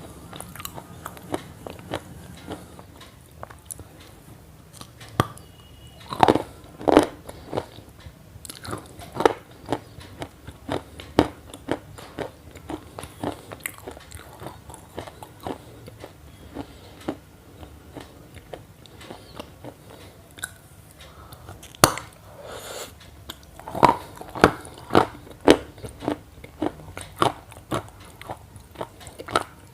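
Crisp crunching and chewing: a run of irregular short crunches, with louder bursts of bites about six seconds in and again near twenty-four seconds.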